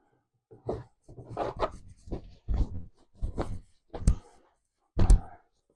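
A run of short, irregular rubbing and scuffing handling noises, with two sharp knocks about four and five seconds in.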